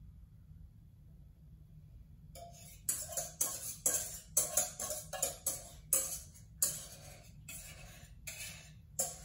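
A spoon scraping around the inside of a stainless steel mixing bowl, starting a couple of seconds in as quick, irregular scrapes about two to three a second, working a flour-and-broth slurry out into a crock pot.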